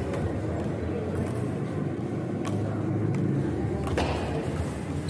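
Table tennis ball being struck during a rally: a few sharp taps of the celluloid ball off bat and table, the loudest about four seconds in, over a steady low hum of the hall.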